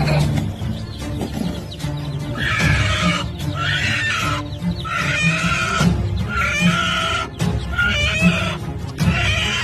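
A chicken calling over and over, short high calls about once a second starting a couple of seconds in, over background music.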